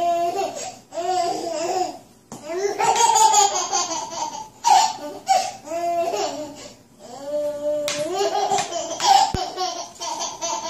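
A baby laughing in repeated high-pitched bursts of giggles and squeals.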